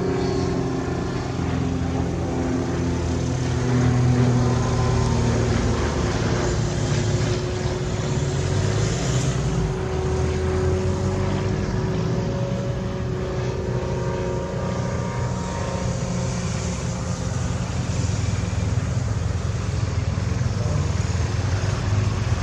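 The Rotax 582 two-stroke engine and propeller of a Loehle 5151 Mustang ultralight replica in flight, a steady drone that shifts slightly up and down in pitch as the aircraft flies past.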